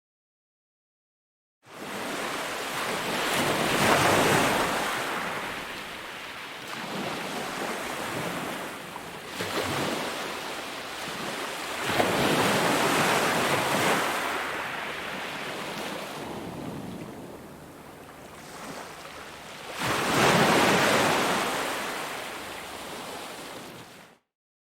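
Ocean waves breaking and washing up the shore, swelling about every eight seconds and ebbing between, starting after a moment of silence and cutting off suddenly near the end.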